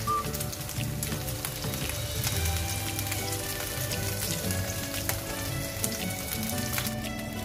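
Pork steaks frying in hot oil in a nonstick pan as they are turned over with tongs: a steady sizzle with scattered small pops.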